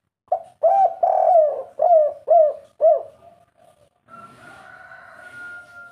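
Spotted dove (derkuku) cooing: a run of about six loud, arched coo notes in the first three seconds, the 'kuk 3' call that keepers prize. A fainter steady tone follows from about four seconds in.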